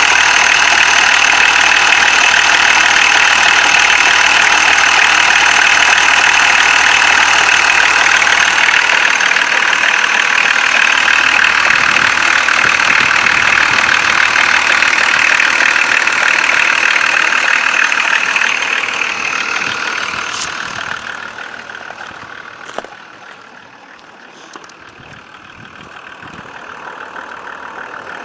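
BMW M51 2.5-litre straight-six turbodiesel running steadily with a knock. The knock is barely there cold and comes in as the engine warms, and its cause is unknown to the owner. About two-thirds of the way in the engine sound fades well down, with a single click, then grows again near the end.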